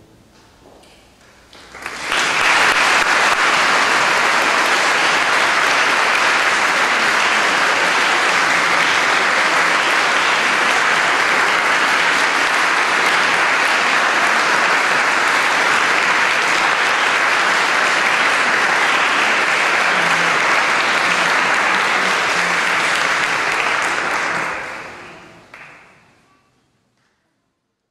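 Church audience applauding at the end of a choral piece. The applause starts about two seconds in, holds steady, and fades away near the end.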